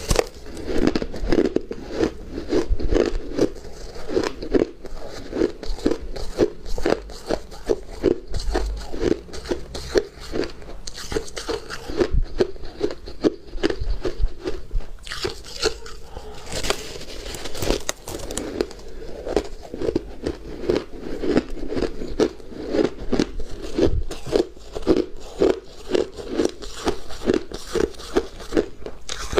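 Person chewing crunchy refrozen shaved ice close to the microphone: a steady run of crunching chews, about three a second.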